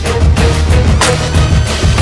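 Loud music with a driving beat and heavy bass.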